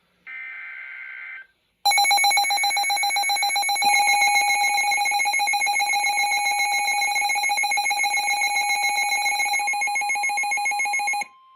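An Emergency Alert System header data burst sounds briefly as a warbling digital screech. After a short gap comes the loud EAS attention signal, a harsh steady two-tone alarm that lasts about nine seconds and cuts off abruptly. A fainter steady tone carries on beneath and after it. Together they announce an emergency alert.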